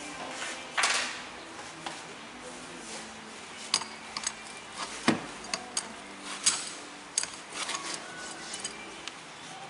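Adjustable wrench clinking against the steel clamps and bolts of a sand-casting mould flask as the clamps are undone: an irregular run of sharp metallic clinks, the loudest about a second in.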